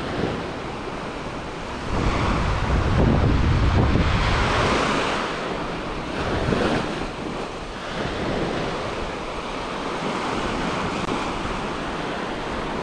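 Small surf breaking and washing up the sand, with wind buffeting the microphone; the wind rumble swells louder about two seconds in and eases off a few seconds later.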